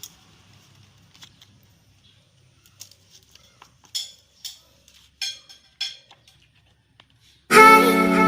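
A run of faint clicks and light taps, with four louder sharp knocks about four to six seconds in. Near the end, music with guitar and singing starts loudly.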